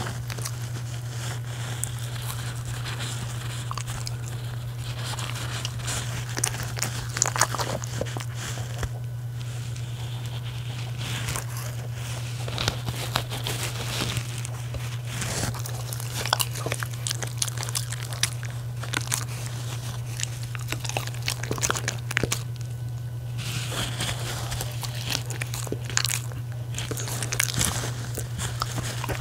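A miniature schnauzer and a West Highland white terrier biting and chewing pieces of baked dog-food donut, with irregular crunching clicks and now and then a crinkle of the plastic wrappers. A steady low hum runs underneath.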